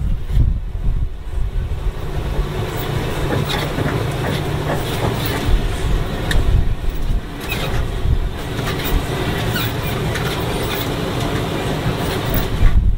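Safari truck driving on a rough dirt track, heard from on board: a steady low rumble of engine and road, with scattered rattles and knocks from the vehicle body.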